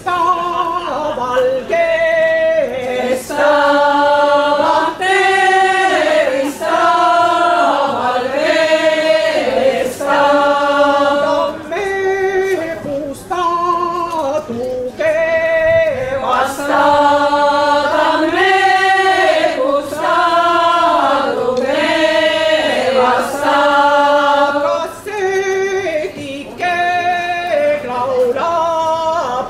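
Folk choir singing unaccompanied in several voices, in short repeated phrases with brief breaths between them.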